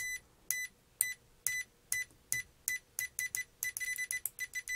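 Uni-T UT61E multimeter's continuity beeper giving short, high beeps each time the probe tips touch, spaced out at first and then coming quicker as the tips are tapped together faster. Each contact registers as a clean beep with no screech on poor contact.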